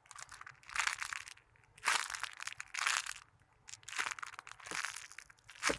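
Plastic crinkling and crackling as it is squeezed and handled, in three long bursts, with a sharp click near the end.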